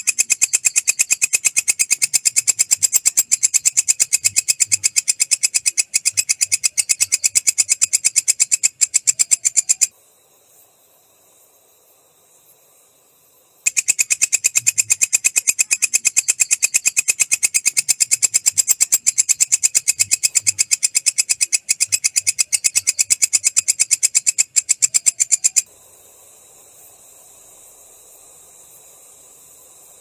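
Walang kecek katydid (green bush cricket) calling: a fast, even train of sharp, high-pitched clicks. The train breaks off for about four seconds a third of the way in, starts again, and stops near the end, leaving a faint hiss.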